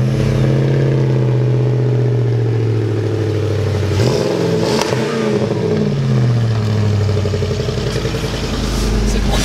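Ford pickup truck engine idling just after being started, with a brief rise and fall in revs about four seconds in, then settling to a steady idle that turns into a duller low rumble near the end.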